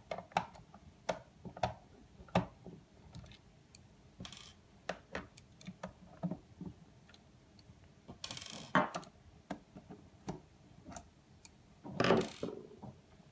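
Small irregular clicks and taps of a screwdriver backing screws out of a plastic alarm-panel housing and of small screws being set down on a wooden table. Two longer scraping sounds come about eight seconds in and near the end.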